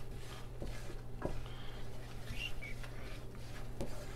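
Wooden spoon stirring a thick butter-and-flour roux in a nonstick pan: soft scraping with a few light knocks of the spoon against the pan, over a steady low hum.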